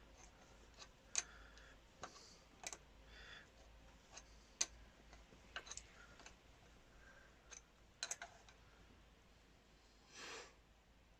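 Faint, scattered sharp clicks and light taps of hand tools and small engine parts being handled on a bench engine, a few seconds apart, with a brief hiss near the end.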